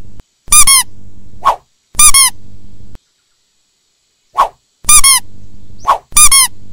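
Yellow rubber squeaky duck toys squeaked four times as they are pressed onto a plastic tray. Each is a short high squeak that dips in pitch at the end, preceded by a brief chirp and trailing into a lower steady buzz.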